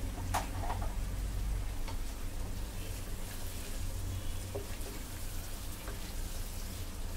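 Onions, potatoes and tomatoes frying in oil in a pot, sizzling steadily while they are stirred with a wooden spatula. There is a sharp knock about half a second in, over a steady low hum.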